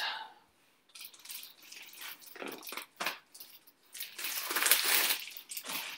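Plastic trading-card sleeves being handled and pulled from their pack: scattered crinkles and clicks, then a longer stretch of rustling about four seconds in.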